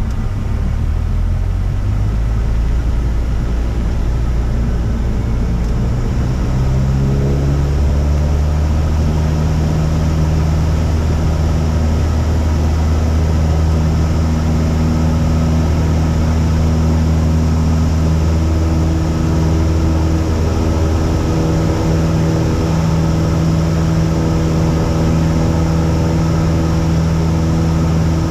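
Cessna 172's piston engine and propeller going to full power for the takeoff roll of a touch-and-go, the engine pitch climbing over the first seven or eight seconds and then holding steady at climb power.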